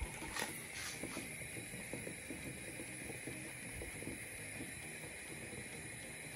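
Cocoa powder being poured from a tub into a bowl on a kitchen scale: a faint, soft patter over steady background hiss, with a few light knocks in the first second.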